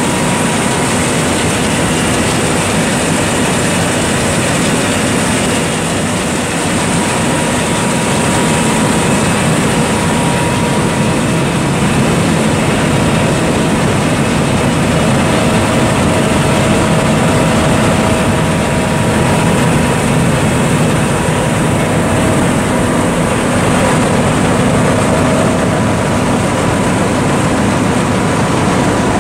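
A John Deere S660 combine running steadily: a constant loud mechanical drone with a few faint, steady whines over it.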